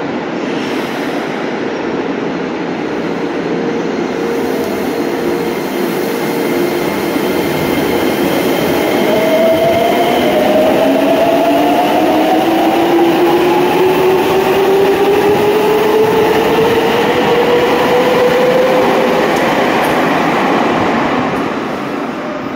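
Nagoya subway train on the Tsurumai Line pulling away, its electric traction motors giving a rising whine over the rumble of the cars as it picks up speed. The sound grows louder through the middle and drops away near the end.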